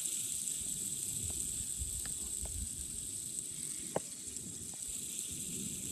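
Fidget spinner coasting after being blown up to speed with compressed air, its bearing giving a steady high hiss, with a few faint ticks.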